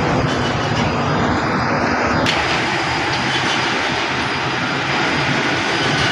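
Heavy machinery running with a loud, steady engine noise. A faint whine rises over the first two seconds and stops abruptly.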